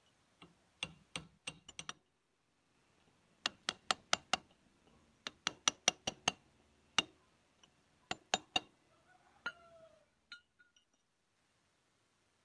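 Hammer striking the steel front-wheel hub of a tractor in quick runs of four to six sharp metallic blows with short pauses between them: tapping on the hub during a front wheel bearing replacement.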